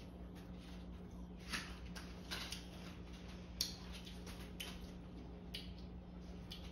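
Crispy breaded fried chicken crunching in a series of short sharp crackles, about one a second, over a low steady hum.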